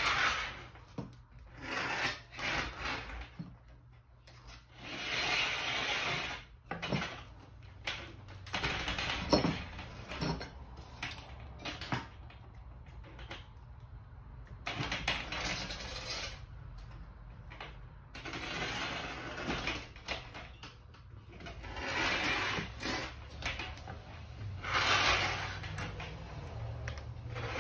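Sliders of a ceiling-mounted steel strut-channel bike rack rolling along the channel as hanging bikes are pushed back and forth: repeated rolling slides of a second or two each, with metallic clacks and knocks in between.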